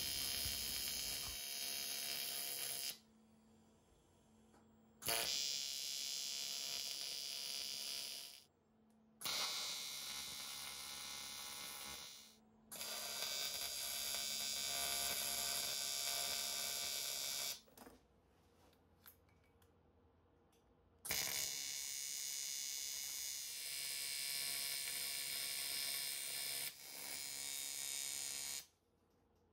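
AC TIG welding arc buzzing on an aluminium cylinder head. It comes in about six runs of two to five seconds each, with short quiet gaps between them as the welder stops and restarts.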